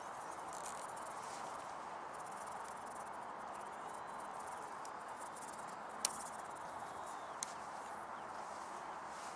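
Quiet, steady outdoor background hiss with no engine or rotor running, broken by two short sharp clicks about six and seven and a half seconds in.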